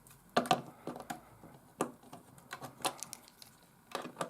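Irregular sharp clicks and light taps of a metal battery terminal and a plastic shim being worked and pushed into the slot of a plastic battery compartment.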